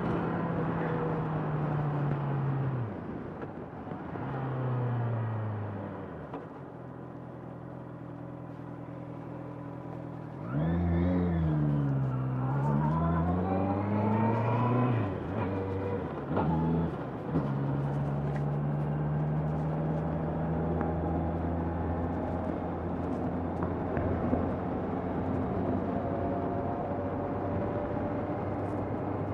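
Honda CBR650R's inline-four engine under way: it slows with falling pitch, runs quieter for a few seconds, then revs up hard about a third of the way through, changes gear and settles into steady cruising.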